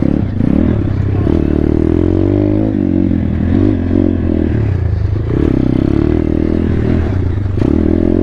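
2019 Thumpstar 140cc pit bike's single-cylinder four-stroke engine being ridden, its pitch rising and falling over and over as the throttle is worked on and off.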